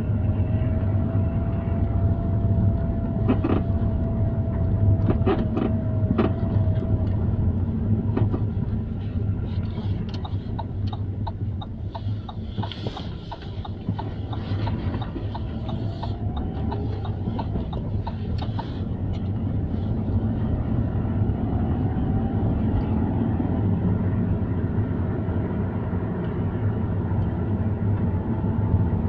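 Lada Vesta on the move, with a steady low road and engine rumble. Over it come scattered sharp creaks and clicks, bunched in two stretches: the squeak this car, at 2,400 km, has developed.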